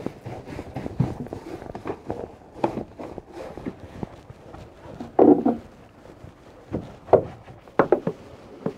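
Better Boat deck brush on an extension pole scrubbing a wet fiberglass non-skid boat deck: irregular scraping strokes and light knocks, with a louder knock about five seconds in.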